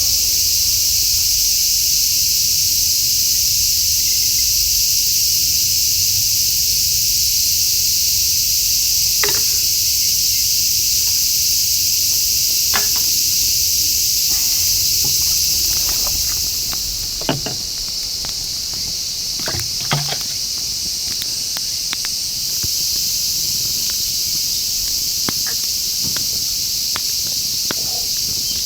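A steady, high-pitched chorus of crickets and other insects, thinning a little about two-thirds of the way in. A few sharp clicks and knocks sound over it, four of them clearest around the middle.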